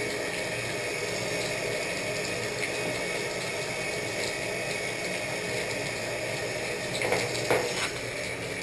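Water running steadily from a bathtub spout into the tub, the shower valve set to full hot yet delivering only cold water, which points to a faulty valve cartridge. A few sharp metal clicks sound near the end.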